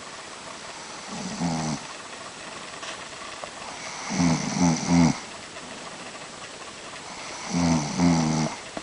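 A sleeping woman snoring: three snores about three seconds apart, the middle one the loudest and broken into three quick pulses.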